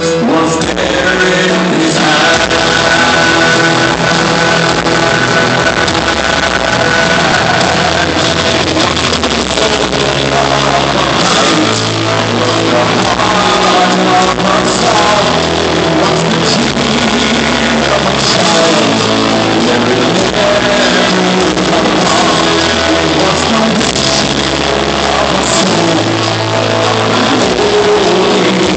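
Loud live band music with singing, played through a concert PA and heard from the audience in an arena.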